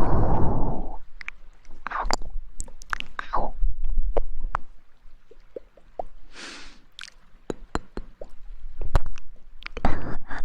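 Close-miked ASMR trigger sounds: irregular crackles, clicks and soft squishes. There is a hissing rush at the start and a brief swish about six and a half seconds in.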